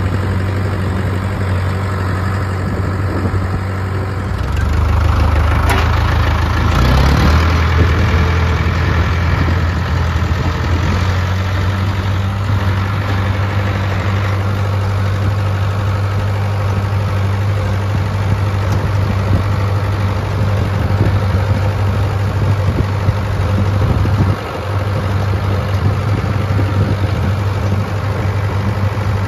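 Ford farm tractor engine running steadily, with a shift in its note about five seconds in.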